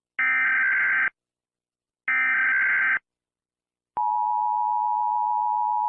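Emergency Alert System data tones: two buzzy, warbling SAME header bursts of about a second each, a second apart, marking the start of a new alert. About four seconds in, the steady two-tone EAS attention signal sounds for about two seconds and cuts off sharply.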